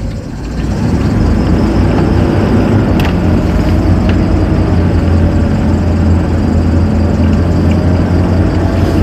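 Two-door Chevrolet Tahoe's engine running steadily under light load, heard from inside the cab, building up over the first second and then holding an even hum. The truck is crawling in four-wheel-drive low at about 10 mph, which keeps the engine turning faster than the road speed would suggest.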